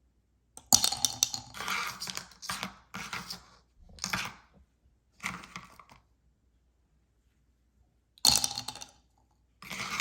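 Candy packages being opened and handled by hand: about eight short bursts of clicking and rattling, with a pause of about two seconds after the middle.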